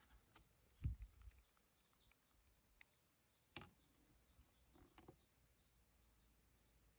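Near-silent outdoor quiet with a bird repeating short, high, falling chirps about three times a second. A soft low thump comes about a second in, and a sharp click a little past the middle.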